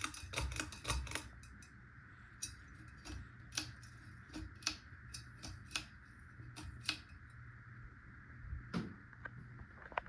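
Chien Luen ceiling fan motor humming steadily on its low setting without properly running, because the small low-speed section of its dual capacitor is dead. Irregular light clicks and jingles sound over the hum, clustered in the first second and then scattered through the rest.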